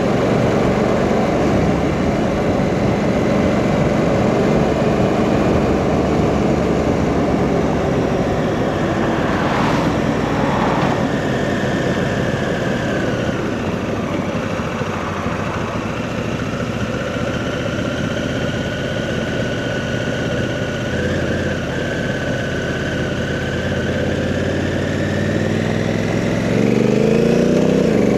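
Honda Africa Twin CRF1000's parallel-twin engine running while riding along the road. Near the end the engine pitch rises as the bike accelerates.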